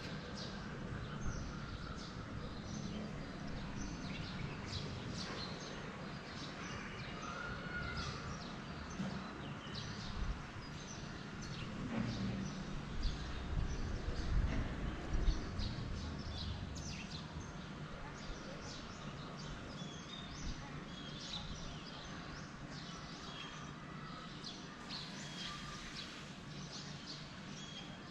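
Birds chirping repeatedly over a steady low background rumble, with the rumble swelling and a few low knocks around the middle.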